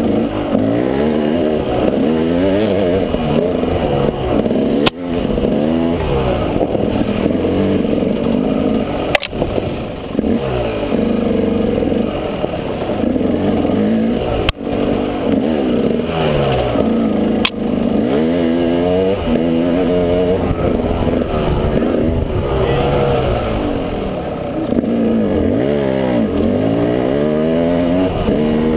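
Motorcycle engine on a trail ride, revving up and dropping back again and again as it accelerates and shifts. A few sharp knocks break in along the way.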